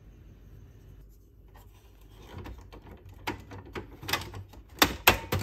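A Canon PG-645 black ink cartridge being handled and pushed into the plastic print-head carriage of a Canon PIXMA MG2960. Rubbing and light clicks begin about two seconds in, ending in three sharp plastic clicks near the end as the cartridge is seated.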